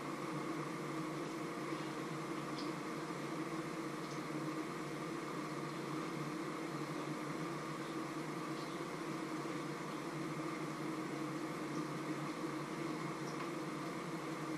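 Steady fan-like mechanical hum with a few faint light clicks.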